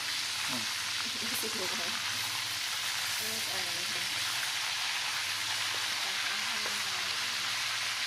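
Quail frying in hot oil, a steady sizzle and crackle.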